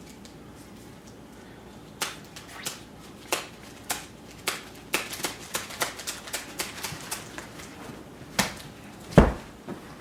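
A run of sharp, irregular taps and clicks, a few each second, then a single heavier thump near the end.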